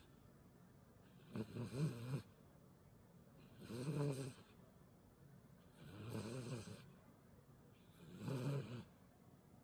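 Senior dog snoring in its sleep: four snores about two seconds apart, each with a wavering pitch.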